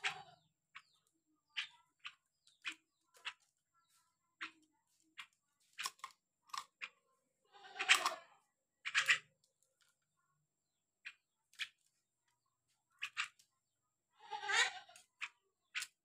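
Caged Javan myna (jalak kebo) chattering: scattered short sharp clicks and notes, with a few longer harsh calls about eight, nine and fourteen and a half seconds in.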